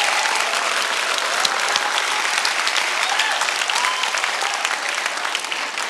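Congregation applauding steadily, with a few voices calling out over the clapping.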